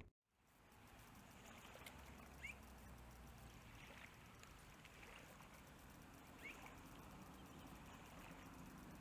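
Faint outdoor quiet at the water's edge, with a soft trickle of shallow water. Two brief high chirps come through, about two and a half seconds in and again about six and a half seconds in.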